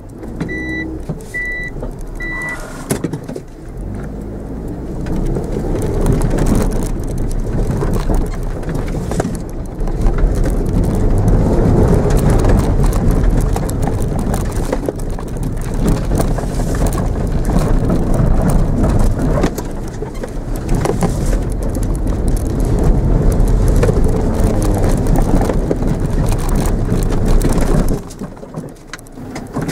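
Mitsubishi Mirage engine heard from inside the cabin, driven hard on a grass course with revs rising and falling through gear changes, over the rumble of the car running on rough ground. Three short high beeps sound in the first few seconds, and the engine noise drops away suddenly near the end.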